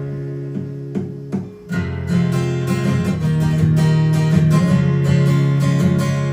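Acoustic guitar strumming chords between sung lines of a song. The strumming eases off briefly about one and a half seconds in, then picks up again.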